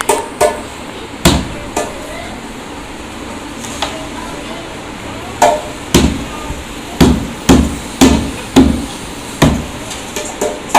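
A dhol being struck while it is tuned: about a dozen sharp strokes, each with a short ringing decay. They come sparsely at first and then roughly two a second in the second half.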